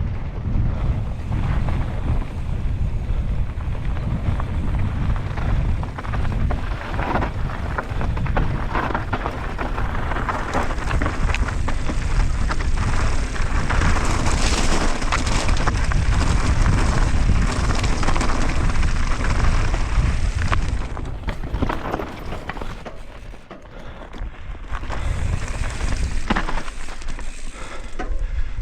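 Mountain bike descending at speed: wind buffeting the microphone as a deep rumble, with tyres crunching over loose rocky ground and the bike rattling. It eases briefly about twenty-three seconds in, then picks up again.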